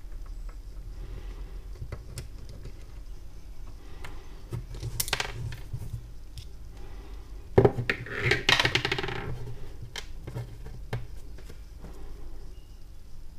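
Small metal clicks and clinks as a screwdriver takes off the bail arm and line roller of a Feeder Concept Pilot 7 spinning reel. A sharp knock a little past halfway is followed by about a second of rattling.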